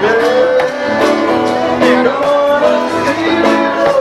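Live band playing reggae, with a plucked guitar prominent and held melodic notes that glide in pitch.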